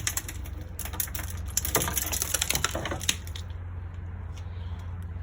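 Shattered tempered window glass crackling and clinking as a screwdriver pries up the door's window lining: a dense run of small clicks for about three seconds that then thins to a few scattered ticks. A steady low hum runs underneath.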